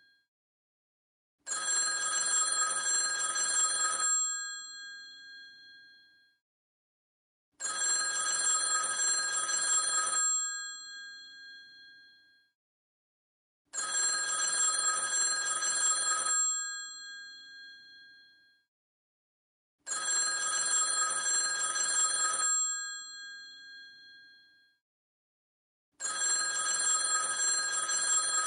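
Old telephone's electromechanical bell ringing in the classic ring cadence: five rings about two and a half seconds long, roughly every six seconds, each ending with the bells ringing on and dying away.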